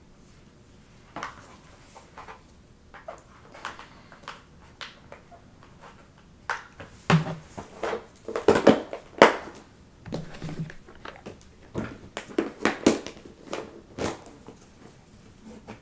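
Hands sorting embroidery floss and bobbins: a run of small clicks and rustles, sparse at first, then busier and louder in the middle and again a few seconds later.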